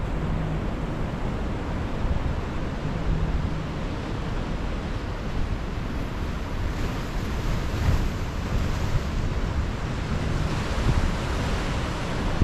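Ocean surf breaking and washing over rocks and boulders: a continuous rush of water that swells louder a few times as waves break, most strongly around the middle and near the end.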